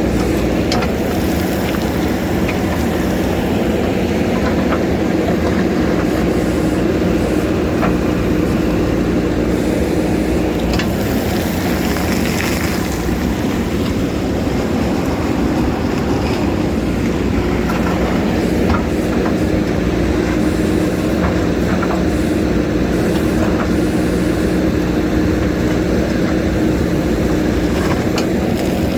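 JCB backhoe loader's diesel engine running steadily, with scattered faint clicks and knocks over it.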